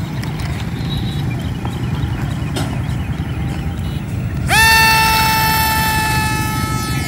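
Low outdoor rumble, then about four and a half seconds in the electric motor and propeller of a WLToys XKA180 F-22 Raptor RC plane spool up sharply to full throttle. They hold a steady high whine as the plane sets off on its takeoff run.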